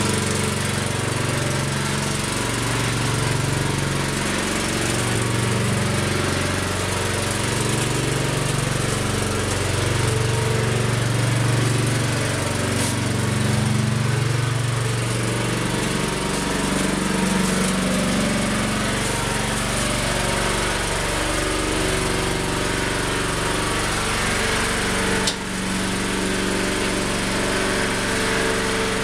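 Small engine of a Truxta 4x4 mini dumper running while the machine drives along carrying a load of logs. The engine note wavers up and down, shifts about halfway through, and dips briefly near the end.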